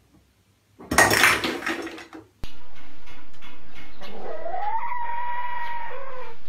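A spray can knocked over by a cat clatters into the sink about a second in. About four seconds in, a cat gives one long meow that rises and then falls.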